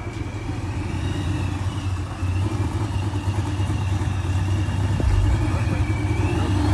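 A pickup truck's engine rumbling at low revs as the truck rolls slowly closer, growing gradually louder, with a thin high whine wavering above it.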